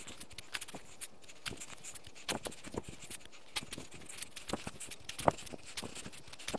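A long-handled spade stabbing repeatedly into lawn turf and soil, cutting a narrow trench: irregular, short crunching stabs and scrapes, a few every second.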